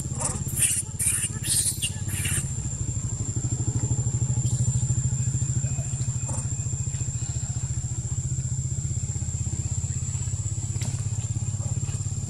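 A small engine, such as a motorcycle's, running steadily with a low hum. A thin steady high whine runs under it. About five short high-pitched squeals from the macaques come in the first two seconds or so.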